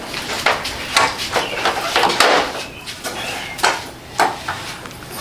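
Metal tools and car parts clinking and knocking in an irregular series of short clacks, with some scraping between them.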